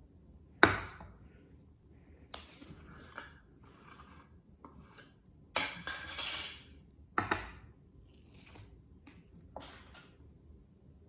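Cloud-texture slime being handled: about five sharp pops, the loudest about a second in, each followed by a short crackling rustle.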